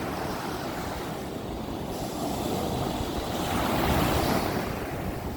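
Ocean surf washing onto the beach, with wind rumbling on the microphone. The wash swells louder about four seconds in.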